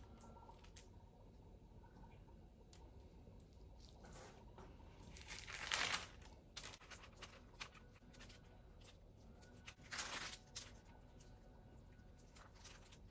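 Faint crinkling and rustling of parchment paper on a sheet pan as raw steaks are lifted, turned over and laid back down. The two loudest rustles come about six seconds in and about ten seconds in.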